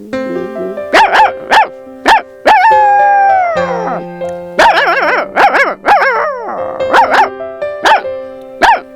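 A woman imitating a dog: a run of short, high yelping barks, with a long howl that falls in pitch about a third of the way in. Background music with long held notes plays underneath.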